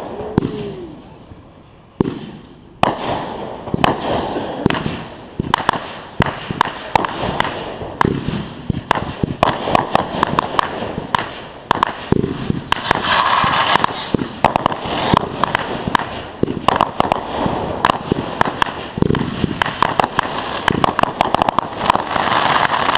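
Consumer fireworks going off: a few separate loud bangs in the first seconds, then a fast, dense barrage of bangs and crackles.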